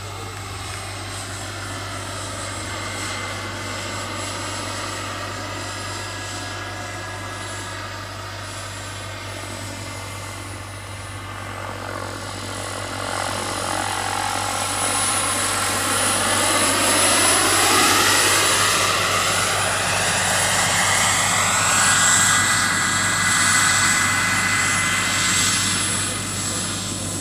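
Turbine-powered large-scale RC model of an Aérospatiale SA-315B Lama helicopter in flight: a steady high turbine whine over the rotor sound, its pitch dipping and then rising again as it moves about. It gets louder about halfway through as it comes nearer and hovers low.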